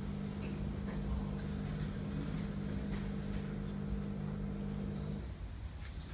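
Steady low mechanical hum with a low rumble under it, which stops about five seconds in.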